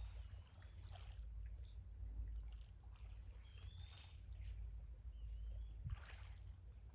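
Water trickling and splashing softly around a kayak, with a few small splashes. A short high whistle sounds three times, and a low steady rumble runs underneath.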